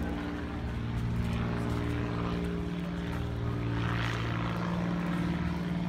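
An engine running steadily, a low drone that holds one pitch throughout.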